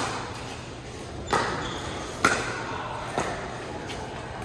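Pickleball rally: hard paddles striking the hollow plastic ball, three sharp hits about a second apart, the last one fainter, each ringing briefly in the large hall.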